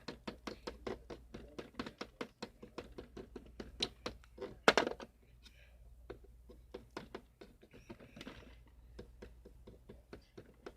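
Quick light tapping of a toy bird's beak pecking at a toy guitar, about four or five taps a second, with one louder knock about five seconds in, then fainter, sparser taps.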